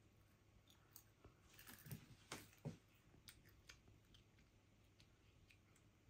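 Near silence with faint crunching clicks, clustered about two seconds in, of a small child chewing butter popcorn.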